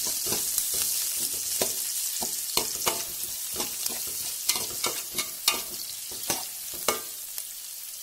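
Chopped onions sizzling in groundnut oil in a metal pan, a steady high hiss, while a spoon stirring them knocks and scrapes against the pan in irregular clicks. The clicks stop about seven seconds in and the sizzle fades a little.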